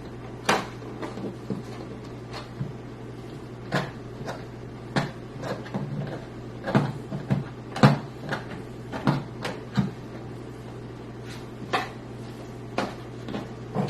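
Irregular clicks and knocks of a screwdriver and screws against a computer case while a screw is being fitted, over a steady low hum.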